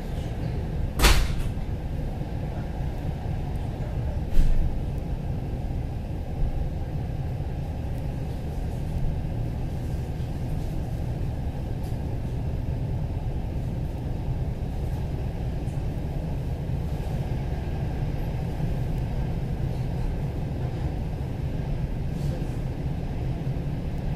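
Steady low rumble of a suburban passenger coach running along the track, heard from inside the carriage. A sharp knock comes about a second in, another at about four and a half seconds, and a lighter one shortly after.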